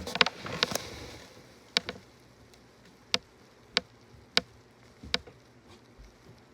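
A few sharp clicks or taps in quick succession at the start, then five single sharp taps spaced roughly a second apart, over low room noise.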